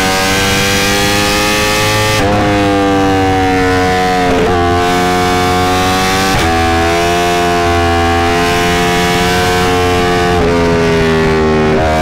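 Yamaha R1's crossplane-crank inline-four engine and exhaust running under way at highway speed. The note is steady but sags slowly and then steps back up sharply several times, about every two to four seconds.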